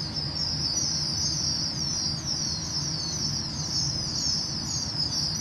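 A pen full of ring-necked pheasant chicks peeping: many high, short, falling peeps overlap in a constant chorus. A steady low hum runs beneath.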